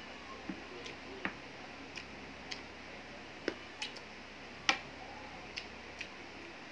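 Eating with the hand: irregular soft clicks and smacks of chewing and of fingers mixing rice on a plate, about ten in all, the loudest a little under five seconds in, over a steady faint hiss.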